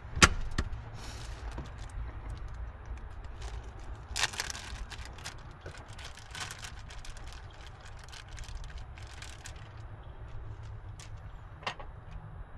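Rustling and clicking as the burger is unwrapped and handled, with one sharp click just after the start and a rustle about four seconds in, over a steady low hum.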